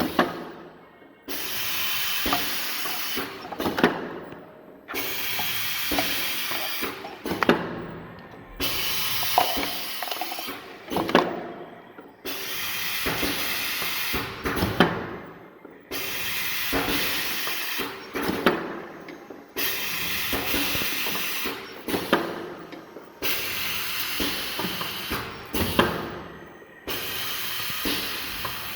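Semi-automatic pneumatic cup filling and sealing machine cycling: roughly every three and a half seconds a sudden hiss of air starts and fades, with sharp clacks from the mechanism, repeating about eight times.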